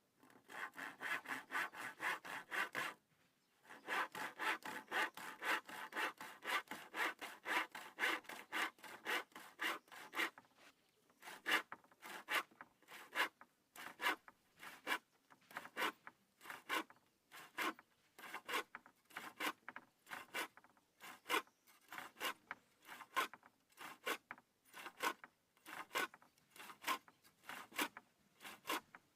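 Hand saw cutting through wood in steady back-and-forth strokes, with a short pause about three seconds in; later the strokes come about two a second.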